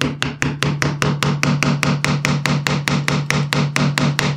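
A homemade mallet with a steel head turned from an electric motor's rotor rapidly taps the wooden handle of a chisel, about six quick even strikes a second, driving the chisel into a wooden board.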